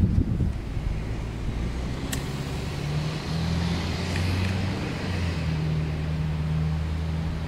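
A steady low engine drone with a slight shift in pitch about three seconds in, and a single sharp click about two seconds in.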